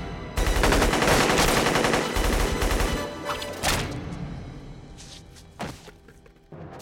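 Film gunfight sound effects: a dense run of rapid automatic gunfire for about three seconds, then thinning out and fading with a few separate sharp cracks. Film score plays underneath.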